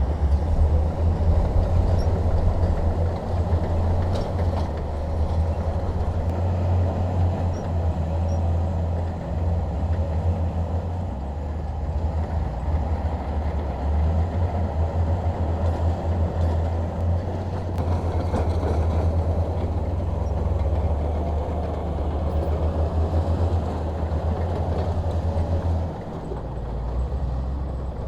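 Bulldozer's diesel engine running with a steady low drone as the machine works, easing off briefly near the end before picking up again.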